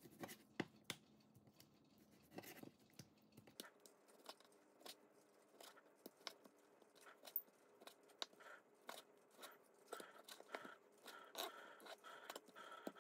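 Faint, irregular taps and cuts of a knife through raw pork onto a cutting board as the meat is cut into small pieces.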